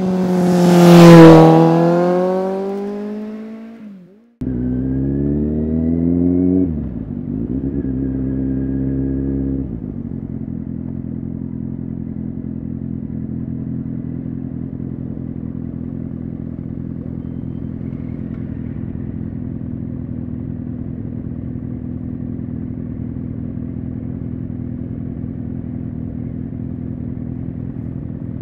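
A vehicle engine sweeps past with a sharply falling pitch. After an abrupt cut, a Kawasaki Z800 inline-four motorcycle accelerates, its engine note rising twice through a gear change. About ten seconds in it settles into a steady, even engine note, idling in city traffic, for the rest.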